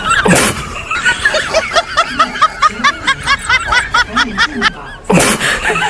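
Comic laughter sound effect: a quick run of high-pitched chuckles, about four to five a second, over background music, with a short hissing burst near the start and another near the end.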